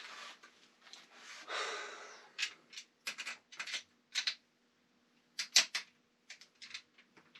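Short metallic clicks and clinks, coming in small clusters, from a small wrench working a nut and bolt as a wheel is fastened to a stair-climbing dolly's frame. A brief scraping rustle comes first.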